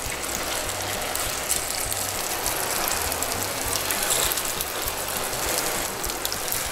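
Raw rice, ham, cheese and egg mixture sizzling steadily in the hot buttered wells of an electric pie maker, with light clicking and scraping from a metal spring-handled cookie scoop as spoonfuls are dropped in and pressed down.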